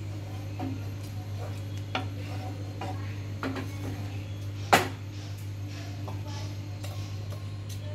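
Wooden spatula stirring thick kidney-bean curry in a kadai, with soft scrapes and light knocks against the pan and one sharper knock about five seconds in. A steady low hum runs underneath.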